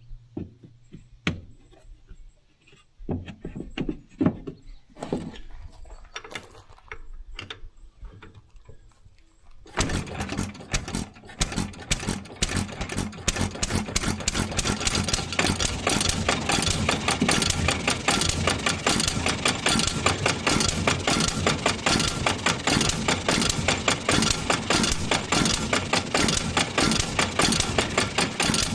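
A 3/4 HP Bluffton hit-and-miss stationary engine being started: for the first ten seconds or so there are scattered clicks and knocks of handling and cranking. Then the engine catches and runs, a fast, even train of firing beats that holds steady.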